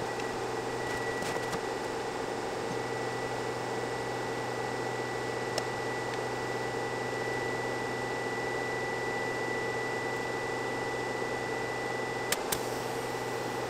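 DeWalt DXAEPI1000 1000-watt power inverter running under a steady 750-watt toaster load: a steady fan-like hum with a thin high whine. The whine stops with a click near the end.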